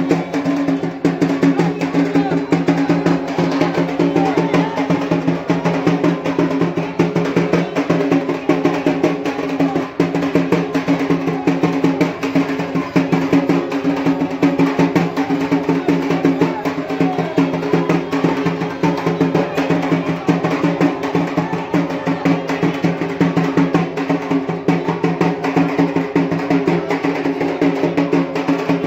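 Drums played in a fast, unbroken roll, with steady low ringing tones beneath the strikes.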